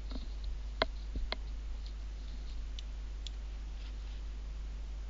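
A few short, sharp clicks, the two loudest close together about a second in and fainter ones later, over a steady low electrical hum.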